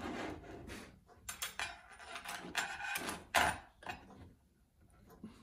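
A couple of strokes of a hand file on a workpiece clamped in a small bench vise, then a quick run of clicks and knocks, loudest about three and a half seconds in, as the tools and the vise jaws are handled.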